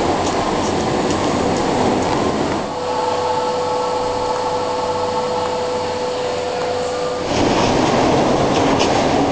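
Metro train running through an underground station: a loud rumble of wheels on rail with sharp clicks. For a few seconds in the middle it gives way to a quieter steady humming tone, then the rumble returns.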